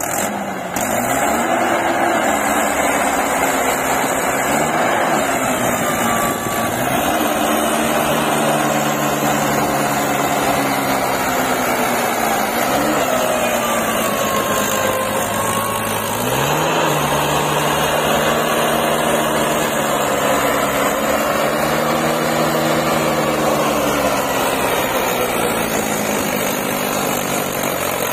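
Mahindra 475 DI tractor's diesel engine running under load while pulling a loaded grain trailer, its speed rising and falling several times as the throttle is opened and eased.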